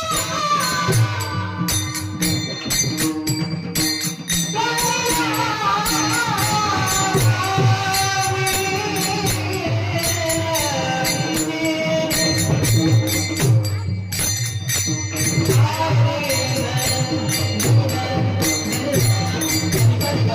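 Warkari devotional kirtan music: a high male voice holding long, wavering notes over rhythmic jingling hand percussion and a low drum beat.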